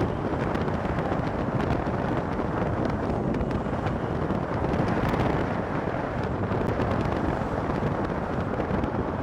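Steady rushing wind noise on the microphone mixed with road noise, as heard while riding along a road in a moving vehicle.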